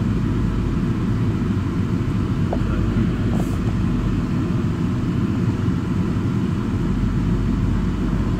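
Car driving, heard from inside the cabin: a steady low rumble of tyre and engine noise.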